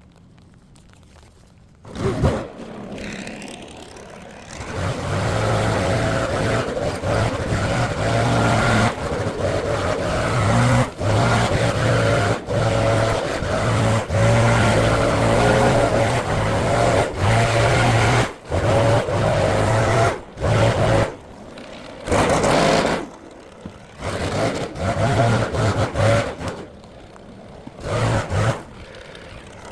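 Small gasoline engine of lawn-care power equipment running steadily under load, starting abruptly about two seconds in, with the sound cutting out and back in sharply many times.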